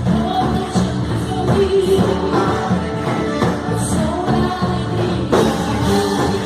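A live worship band plays an upbeat song with singing over it, the drum kit's beat prominent in the mix. A louder hit that reaches high up comes about five seconds in.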